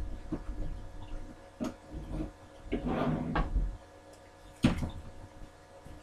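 Kitchen cupboards and drawers being opened, shut and rummaged through in a search: scattered knocks and clatters, a longer rattling clatter about three seconds in, and a sharp knock a little before the end.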